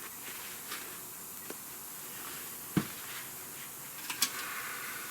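A few light clicks and knocks from handling a quart bottle of engine oil while topping up a truck engine, the sharpest knock near the middle and a quick pair of clicks about a second and a half later, over a steady faint hiss.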